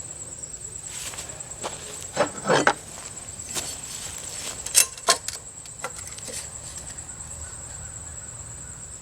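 Scattered light knocks and clicks from handling wood and tools, over a steady high insect chirring.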